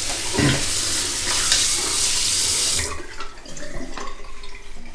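Water running from a bathroom sink tap over hands being washed. The steady splashing hiss stops abruptly about three seconds in, leaving a few faint small sounds.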